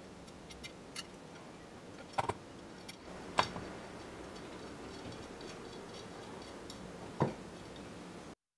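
Light metallic clicking of loose steel bicycle spokes knocking against each other and the hub flanges as a rim is lifted over the laced hub, with three sharper knocks, the loudest about three and a half seconds in.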